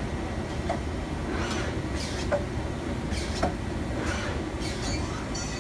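Mazak Multiplex 6200Y CNC lathe running with a steady low hum, with a few sharp clicks and several short hisses.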